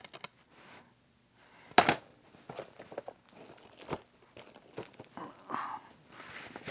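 A shrink-wrapped DVD case being handled: scattered crinkles of the plastic wrap and light clicks and taps, the sharpest about two seconds in, as the case is turned over and laid on a stack of other DVD cases.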